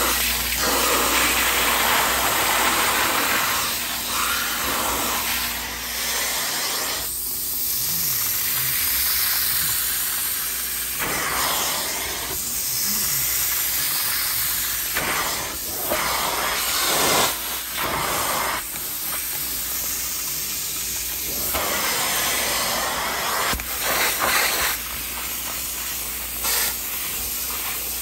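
Upholstery extraction tool drawn across a fabric sofa, its suction making a loud hissing rush that swells and drops with each pass, over the steady low hum of the extractor machine.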